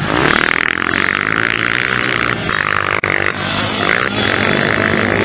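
Motocross bikes' engines revving hard on the track, the throttle chopped and reopened a few times.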